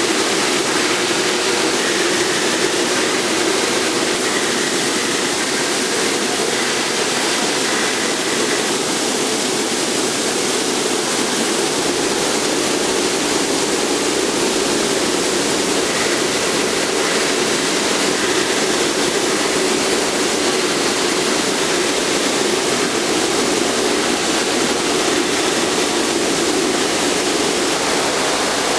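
Laser welding equipment running: a steady hiss with a hum underneath.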